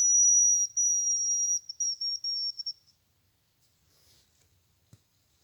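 Hazel grouse call, a very high, thin whistle: two long drawn notes, then a quick run of short broken notes falling slightly in pitch, ending about three seconds in.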